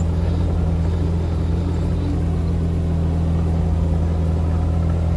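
Kubota mini excavator's diesel engine running steadily with a deep, even hum.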